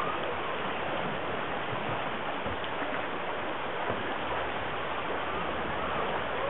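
Steady rushing of a fast, shallow river current running over riffles.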